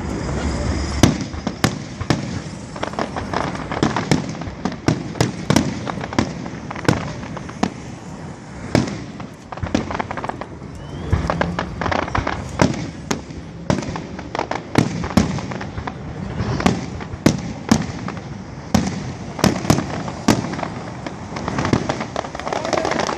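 Fireworks display: an irregular, rapid run of sharp bangs from bursting aerial shells, several a second at times, over a continuous background din.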